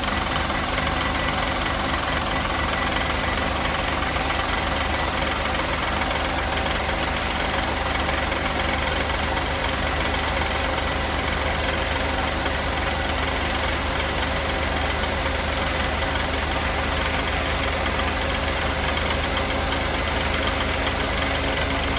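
Mercedes 560 SEC's V8 engine running steadily with a knocking noise from the engine.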